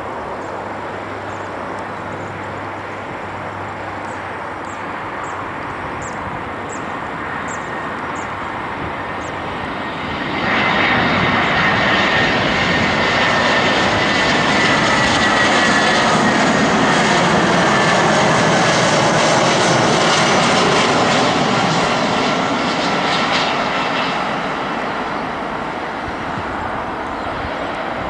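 Airbus A319 jet airliner on final approach: steady distant jet engine noise that swells suddenly about ten seconds in as it passes low overhead, with a high whine slowly falling in pitch, then fades as it descends toward the runway.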